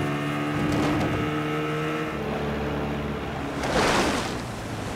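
Storm-and-flood movie soundtrack: steady held tones over rushing wind and water, then a surge of rushing water noise a little before the end.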